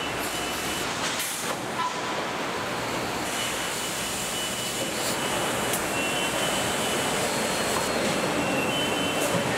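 Steady machinery noise of a car assembly line, a continuous hum and hiss with a few brief clicks and short faint high tones.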